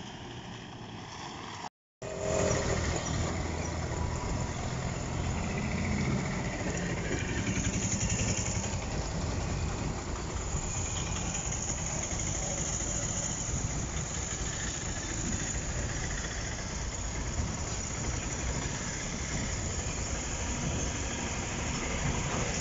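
Road traffic: vehicle engines running, heard as a steady, loud rumbling noise. The sound drops out completely for a moment about two seconds in.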